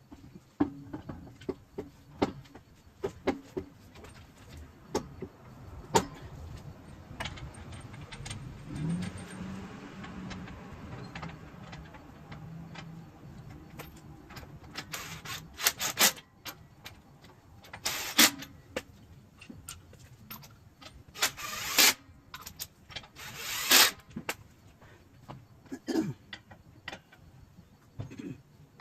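Scattered knocks, clicks and clanks of tools and suspension parts being handled on the vehicle. A low hum runs for a few seconds about a third of the way in, and several short, loud bursts of noise come in the second half.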